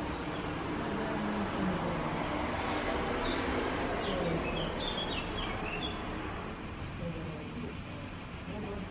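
Outdoor ambience: insects drone steadily at a high pitch, with a few quick bird chirps from about three to six seconds in, over a steady background hiss.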